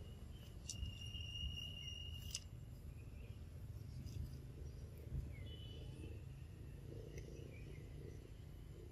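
Faint outdoor ambience with a low steady rumble. A high, even insect trill sets in about a second in and cuts off sharply under two seconds later, and a shorter high trill comes around the middle.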